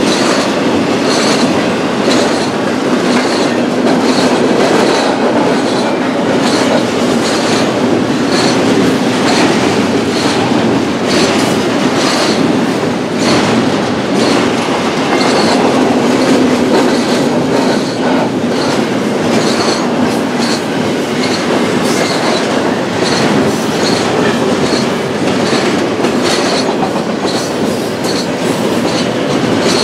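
BNSF double-stack intermodal freight cars rolling past: a steady rumble of steel wheels on rail with regular clicks as the wheels cross rail joints.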